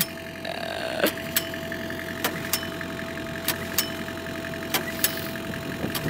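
Small gasoline engine of a portable bandsaw mill running with a steady hum, with sharp clicks at intervals of about a second.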